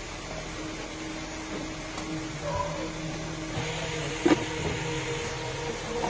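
A steady electric motor hum, with a sharp knock about four seconds in and another near the end.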